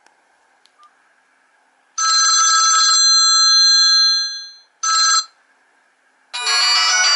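Built-in ringtones of a Ginzzu R11D mobile phone: after two faint clicks, a bell-like ringing tone starts about two seconds in and fades away, a brief snippet follows, and a busier, denser ringtone begins near the end.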